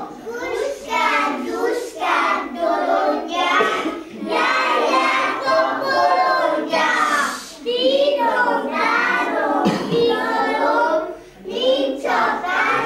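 Young children singing together in high voices, with barely a break.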